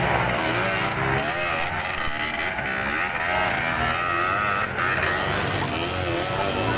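Dirt bike engine revving up and down again and again, the throttle worked hard on a steep muddy climb.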